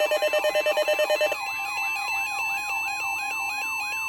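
Weather radio alert alarms going off for a tornado watch: an electronic siren tone rising and falling about two to three times a second, over a rapid electronic beeping that stops about a third of the way in.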